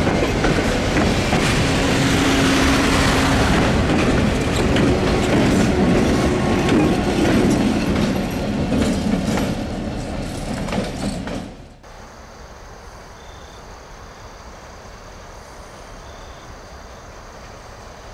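A train passing at close range, passenger coaches and then a blue diesel locomotive, its wheels clacking over the rail joints. About twelve seconds in it cuts off suddenly to a much quieter steady background with a faint high drone.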